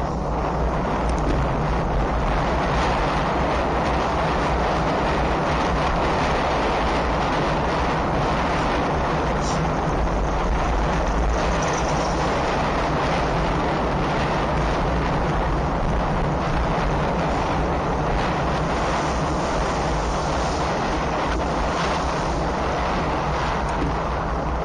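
Steady wind rush over an action camera's microphone while riding, with a constant low rumble underneath.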